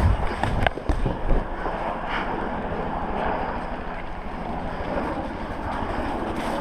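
Wind buffeting the camera's microphone in deep rumbling gusts for the first second or so, then settling into a steady rushing noise.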